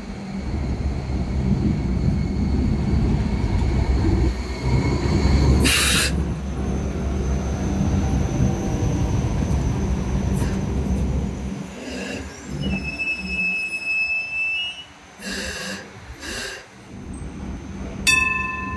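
Hong Kong Light Rail Phase 4 light rail vehicle running past close by on curved track. Its wheels rumble low and squeal high and steady on the curve, with a sharp clank about six seconds in. The rumble fades after about eleven seconds, followed by more squeal, two knocks, and a sharp metallic ring near the end.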